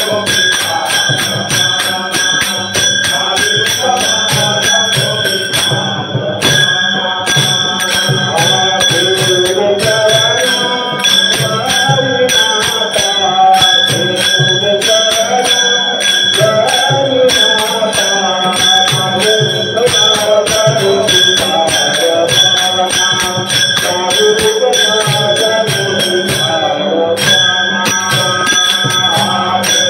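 Marathi devotional abhang music: a melody over a fast, steady percussion rhythm. The percussion drops out briefly about six seconds in and again near the end.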